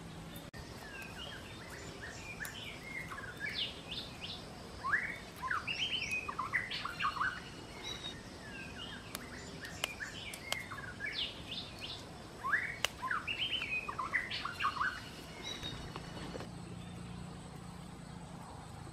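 Small birds chirping, giving quick runs of short twittering calls in bursts through most of the stretch, then falling quiet near the end.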